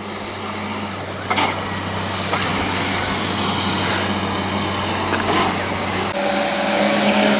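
Streamline RC Thrasher electric jet boats running on 5S LiPo, with a steady motor and jet-pump whine over rushing water. The sound grows slowly louder, and about six seconds in the pitch shifts as a higher whine takes over.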